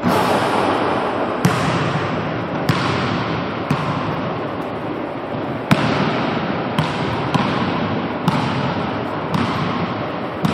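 A basketball strikes the hoop as a three-point shot arrives, then bounces and is dribbled on a hardwood gym floor: about nine separate thuds spaced unevenly, every half second to two seconds, each ringing in a long echo from the empty gym, over a steady rushing background noise.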